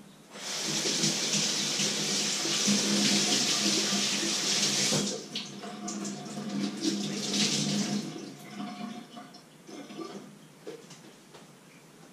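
Water running in the kitchen, a steady rush that starts suddenly, breaks off briefly midway and tails away after about eight seconds, followed by a few light clicks and knocks.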